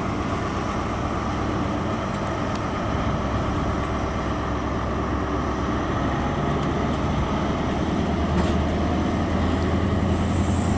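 InterCity 125 high-speed train pulling out of the station: a steady rumble of the Class 43 diesel power cars and the coaches on the rails, with the engine note growing louder toward the end.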